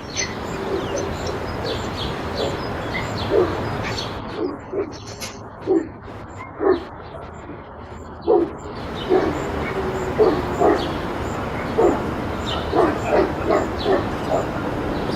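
Dog barking repeatedly: single barks a second or so apart at first, then quicker runs of several barks a second toward the end.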